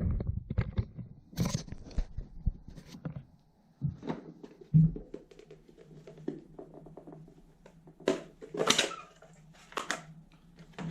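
Hands working a plastic Scalextric slot-car box: scattered clicks, taps and crinkly rustles, with a few louder rustling bursts about a second and a half in and again near the end.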